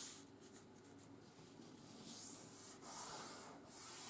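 Faint rubbing of hands sliding over a sheet of 80 g/m² office paper, pressing down a fresh fold; mostly quiet at first, then two soft swishes in the second half.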